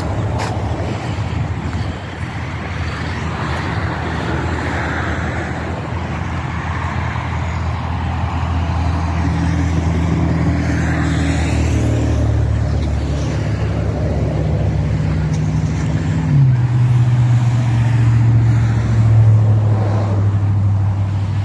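A motor vehicle's engine running steadily at low speed, with a low hum that steps down slightly in pitch about three quarters of the way through.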